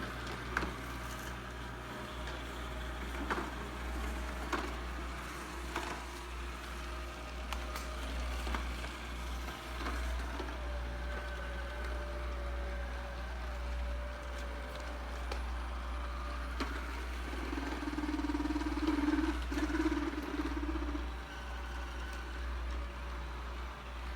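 ILife robotic vacuum cleaner running, its motor humming steadily, with occasional sharp clicks or knocks and a louder stretch of mid-pitched whirring about three quarters of the way through.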